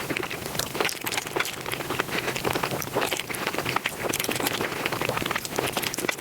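Close-miked eating sounds sped up five times: chewing and biting compressed into a dense, rapid crackle of tiny clicks.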